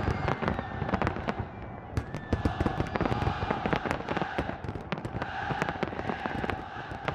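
Fireworks display bursting overhead: a dense run of bangs and crackles with a few thin whistles.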